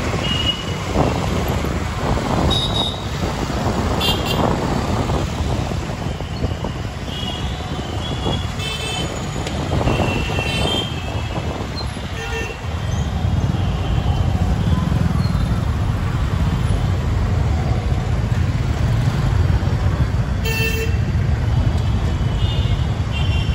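Dense city traffic of motor scooters, motorbikes and cars moving close by, with a steady low rumble. Many short horn toots sound throughout, several of them high beeps in quick runs, and the rumble grows heavier a little past halfway.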